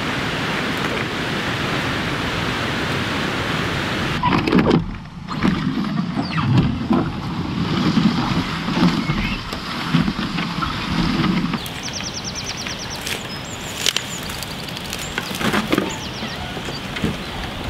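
Water rushing steadily over a weir, then, from about four seconds in, the hull of a wooden cedar-strip canoe scraping and bumping unevenly as it is dragged through undergrowth and over the ground. Near the end the dragging is quieter, with a few scattered clicks and snaps.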